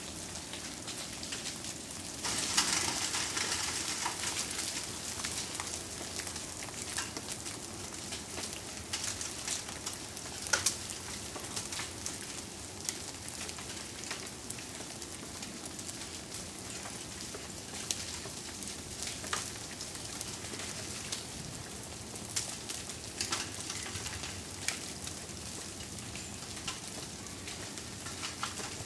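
Ice-coated trees and branches shedding ice: a steady crackling hiss with many small sharp ticks and clicks of ice pieces dropping and breaking. It is louder for a couple of seconds near the start.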